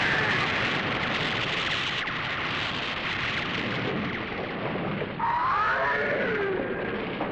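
Dense, continuous rushing noise of explosion and fire sound effects. About five seconds in comes a kaiju's cry, a pitched call that rises and then falls.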